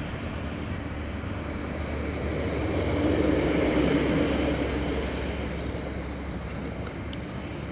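An engine drone swells to a peak about halfway through and fades again, like a motor passing by, over steady wind noise on the microphone.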